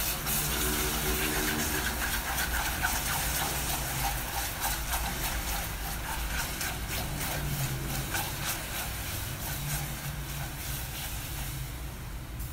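Hot caramel hissing and bubbling as a stream of sweetened condensed milk goes into it and is stirred fast with a silicone spatula, with many short scrapes of the spatula against the pot.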